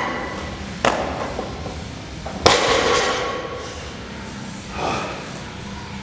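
A 260 kg barbell loaded with bumper plates hitting the floor twice during deadlift reps. There is a sharp knock about a second in, then a louder one about two and a half seconds in that rings on briefly.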